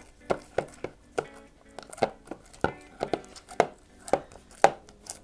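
Homemade slime being kneaded and squeezed by hand, giving a run of short wet clicks and pops, roughly two a second.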